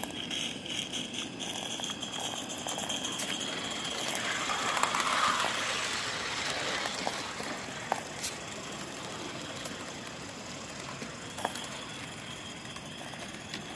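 Live-steam model Forney locomotive running on its track, with a steady mechanical rattle and scattered clicks. A louder hiss swells about four seconds in and fades by about seven.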